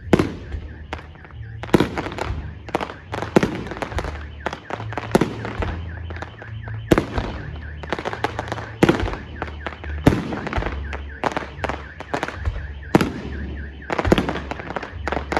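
Fireworks display: a dense run of loud bangs from aerial shells bursting, several close together at times, with crackling between them. A faint wavering tone runs underneath.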